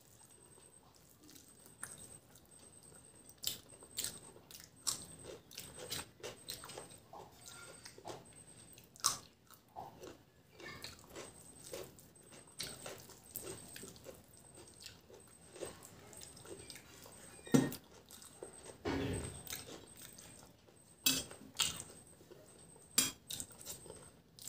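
Close-up eating by hand: chewing and mouth smacks of rice with fried vegetables, with fingers mixing the rice on a steel plate, heard as scattered short clicks and smacks.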